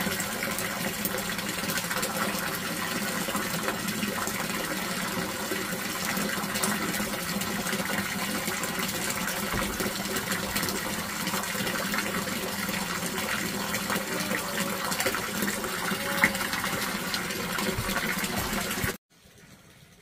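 Steady rush of running or pouring water with a faint low hum beneath it, cutting off abruptly near the end.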